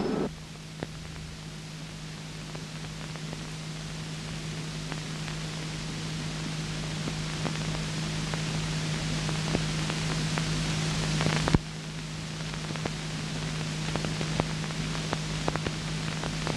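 Worn soundtrack of an old film copy with no sound on it: an even hiss over a steady low hum, with scattered crackles and pops. A louder sound cuts off at the very start, and a little past halfway a stronger click is followed by a slight drop in the hiss.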